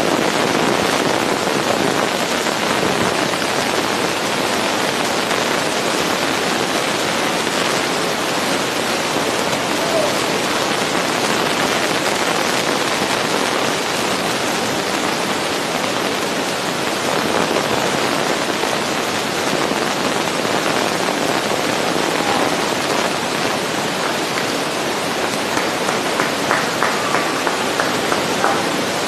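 A steady, even rushing noise, with a few faint clicks near the end.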